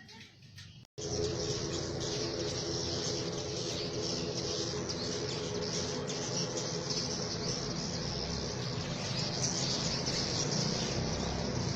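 A dense, unbroken chorus of swiftlet chirps from many birds at once, as a flock crowds into the entrance hole of a swiftlet house; it starts suddenly about a second in.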